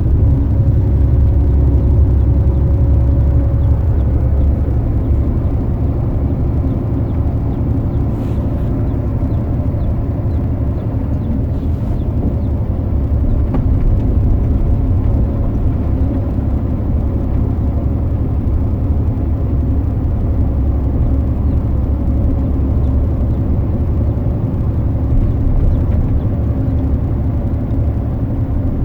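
Motor vehicle driving at a steady speed: a continuous low engine and road rumble with no changes or sudden events.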